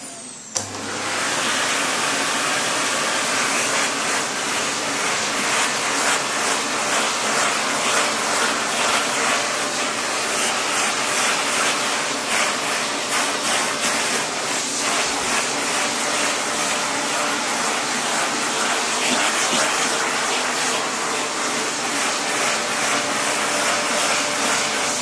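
Vacuum cleaner running steadily, its nozzle being brushed over a dog's coat. The motor comes up to full speed about half a second in after a brief dip.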